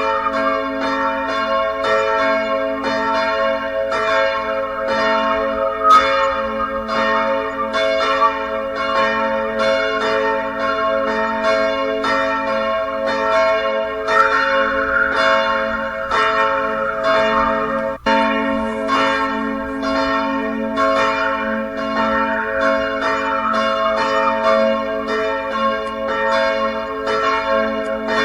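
A peal of church bells ringing continuously, about three strikes a second, with each bell's ring overlapping the next. The sound drops out for a moment about two-thirds of the way through.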